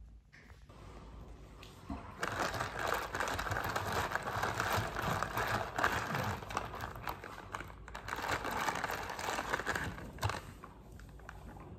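Plastic cup of iced matcha latte being handled and shaken, a dense crackling clatter of many small clicks that starts about two seconds in, dips briefly, and dies down near the end.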